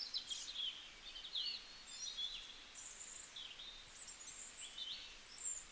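Small birds chirping and singing, a busy run of quick high chirps, trills and short whistles, one after another over a faint outdoor hiss.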